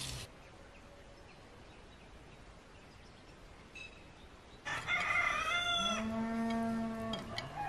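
A rooster crowing once: a single long cock-a-doodle-doo about two and a half seconds long, starting about two-thirds of the way in, that rises, holds a steady pitch, then drops away.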